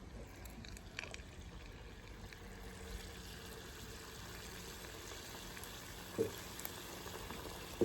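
Chicken pieces deep-frying in hot oil, a steady low sizzling and bubbling, with a couple of light knocks near the end.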